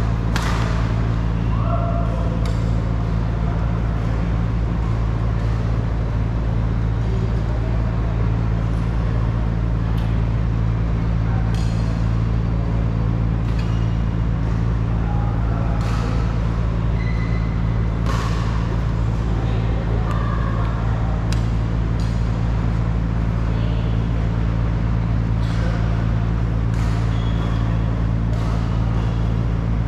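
Badminton rackets striking a shuttlecock in sharp, irregular pops, with a few short shoe squeaks, over a loud steady low hum.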